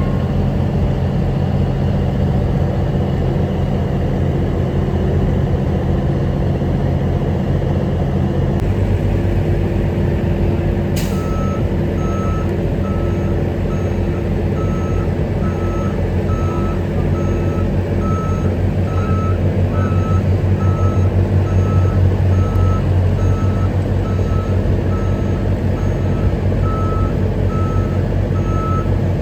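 A heavy vehicle's engine running steadily, with a backup alarm that starts beeping about a third of the way in and keeps up evenly spaced beeps of a single pitch. The engine grows a little louder past the middle.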